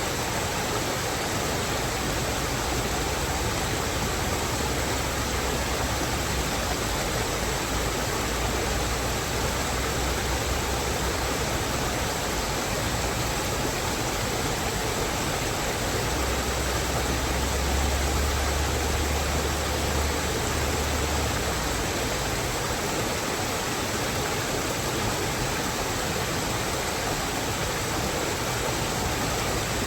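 Steady, even rushing of water in a mountain forest, with a low rumble underneath that swells for a few seconds from about the middle of the stretch.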